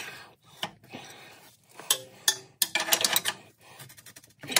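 Hand ratchet clicking in short bursts, with light metal clinks, as the nuts holding the exhaust to the turbo are worked loose.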